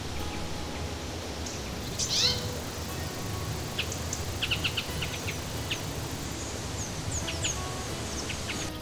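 Birds calling: scattered short high chirps and quick runs of chips, with a rapid falling sweep about two seconds in and another at the very end, over a steady low background.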